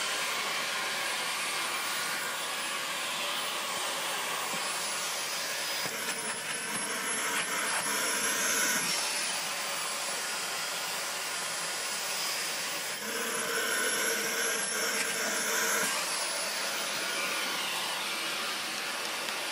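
Dyson Ball vacuum cleaner running with its hose and wand in use, a steady whooshing drone; a thin high whistle comes into its sound twice, for about three seconds each.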